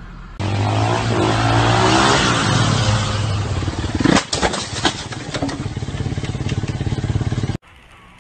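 A vehicle engine running hard, then about four seconds in a crash: several sharp impacts within a second, followed by a fast, even rattling.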